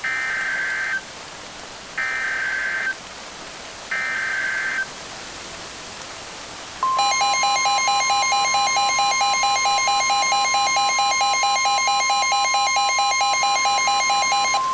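Emergency Alert System SAME header: three one-second bursts of warbling data tones about two seconds apart. About seven seconds in, the attention signal starts: a steady high tone with a rapidly pulsing, buzzy alarm tone over it. It opens a flash flood warning.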